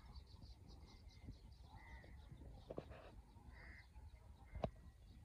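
Faint birdsong: steady light chirping with two short bird calls in the middle. Two sharp knocks cut through, about halfway and near the end, the second the louder.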